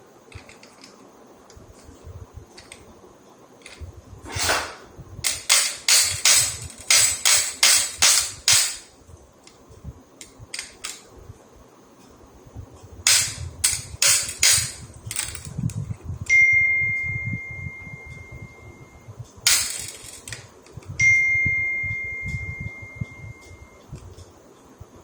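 Workshop tool handling: bursts of quick sharp clicks and taps, a few louder knocks, and twice a steady high tone lasting about three seconds.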